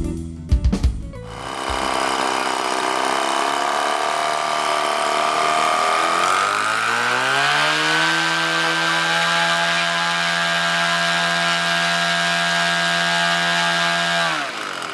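DLE gasoline engine and propeller of a 47%-scale Pilot-RC Decathlon model airplane running up on the ground. It starts at a lower speed, is throttled up over about two seconds to a steady high-rpm note, and is pulled back sharply toward idle near the end.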